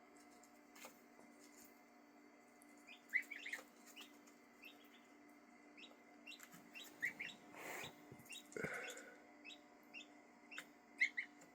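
Young ducklings and goslings peeping faintly, short high chirps coming singly and in little runs, over a steady low hum.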